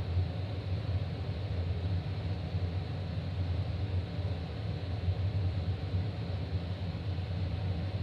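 Ventilation vent running with a steady low hum and an airy hiss, an unbroken drone that the uploader finds annoying.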